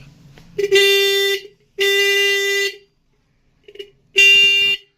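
Repaired electric car horn sounding in three blasts of under a second to about a second each, with a short blip before the last, and silence between. It blows a steady, strong tone, which shows it works again after the repair.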